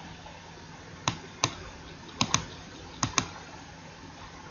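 Clicking at a computer: six short, sharp clicks, mostly in quick pairs about a second apart, over faint room hiss.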